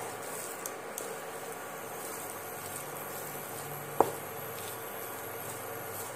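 A spatula stirring and scraping thick ground masoor dal batter around a nonstick kadai as it cooks down, with soft squelching, small scrapes and clicks, and one sharp knock of the spatula against the pan about four seconds in.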